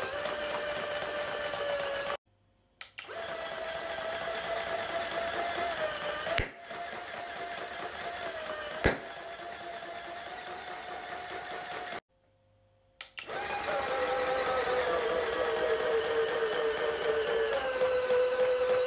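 VTech Kosy plush puppy's internal motor mechanism running over-volted from a bench power supply: a steady whine with a couple of sharp clicks, cutting out twice for about a second. In the last few seconds the whine sits lower and wavers while the toy draws heavy current at the supply's 3.2 A limit.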